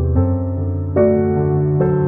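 Background music: sustained chords, changing to a new chord about once a second.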